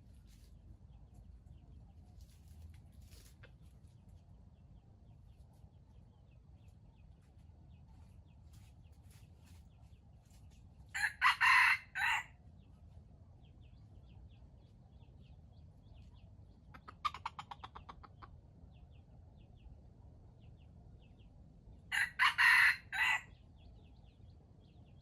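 A rooster crows twice, each crow loud and about a second long, about 11 s apart. Between the crows, a short rapid series of pulsed calls, with faint small birds chirping throughout.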